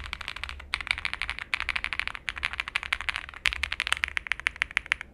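Fast typing on an Owlab Spring custom mechanical keyboard with lubed and filmed Owlab Tungsten switches on an FR4 plate, under CannonCaps Hydrangea keycaps. The keystrokes come in quick clicking runs with a few short breaks.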